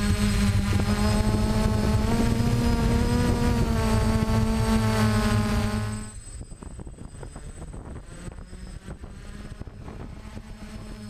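DJI F450 quadcopter's electric motors and propellers buzzing at a steady pitch, which rises slightly about two seconds in. About six seconds in the buzz drops away as the quadcopter comes down to the road, leaving faint clicking, and a quieter motor hum picks up again near the end.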